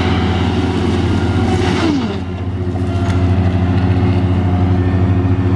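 Heavy diesel engine of logging equipment running steadily, its revs dropping about two seconds in and then holding.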